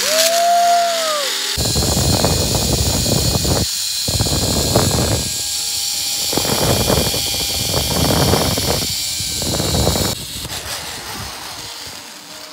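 A zip-line trolley's pulleys run along the cable with a loud whir and a steady high whine, with wind rushing over the microphone. It cuts in about a second and a half in and tails off near the end as the rider slows into the landing platform.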